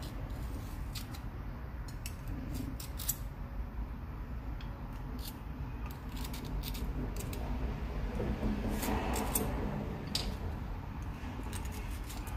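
Light scattered clicks and taps of small brass handle pins being handled and pushed through a knife scale and its template, over a steady low background hum. A louder rustle or scrape comes about two-thirds of the way through.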